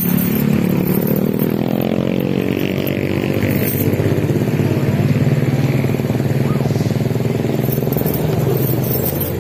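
Road traffic driving across a railway level crossing: motorcycle and truck engines running steadily, with one engine's pitch falling about two seconds in.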